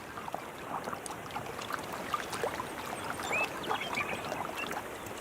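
Beaver moving through pond water: small irregular splashes and drips over a steady trickle.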